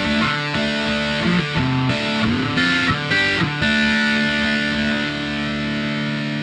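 Electric guitar played through a BOSS OS-2 OverDrive/Distortion pedal: distorted notes and short phrases, then a chord left ringing for the last couple of seconds.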